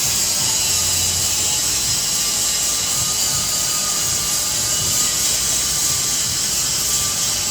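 A loud, steady high-pitched hiss that runs without a break.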